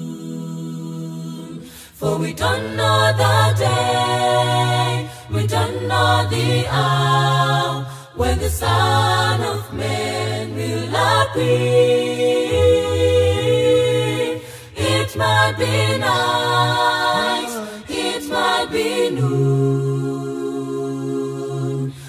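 A cappella gospel group of men and women singing in harmony, with a deep bass line held under the upper voices.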